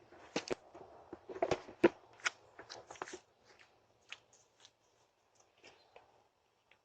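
Irregular rustling and sharp clicking, many in the first three seconds and then thinning to a few faint ticks, picked up by a doorbell camera's microphone.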